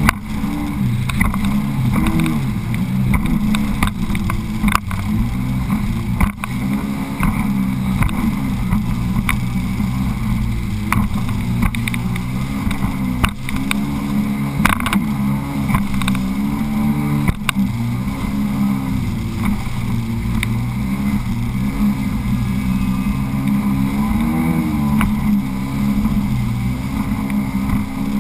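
Sea-Doo personal watercraft running at speed, the engine's pitch wavering up and down as it rides over chop, with frequent sharp knocks of the hull and spray hitting the water.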